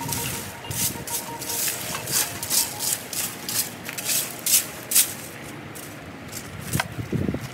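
Broom sweeping the ground in quick scratchy strokes, about two a second, growing fainter after about five seconds.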